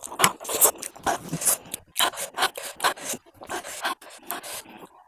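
Spicy noodles being eaten close to the microphone: a quick, irregular run of short slurping and chewing noises.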